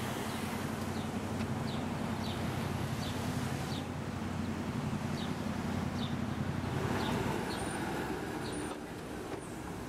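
Street traffic: car engines running close by with a steady low hum that eases off near the end, and a small bird chirping over it about twice a second.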